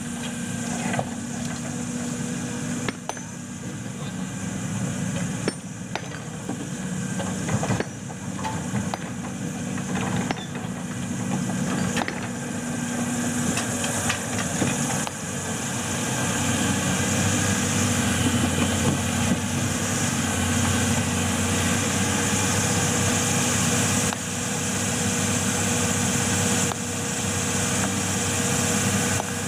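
Hydraulic excavator's diesel engine running steadily, with scattered sharp knocks in the first half. The engine grows louder and steadier from about halfway through.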